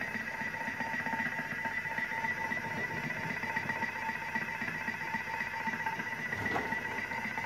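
Thermomix food processor running steadily mid-program, its motor turning the blade with an even whine.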